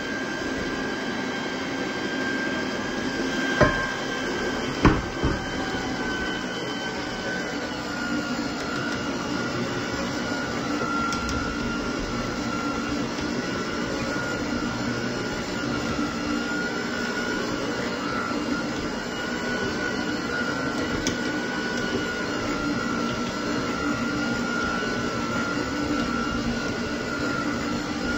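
Electric hand mixer running steadily, its motor whining as the beaters work a thick cake batter in a glass bowl; the whine drops slightly in pitch about seven seconds in. Two sharp knocks sound about four and five seconds in.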